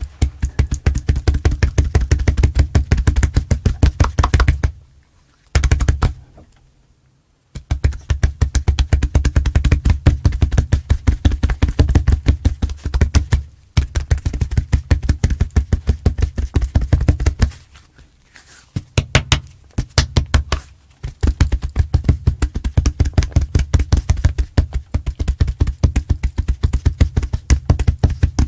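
A person beating on their chest with their hands: rapid runs of dull, bassy thumps, several a second, broken by a few short pauses.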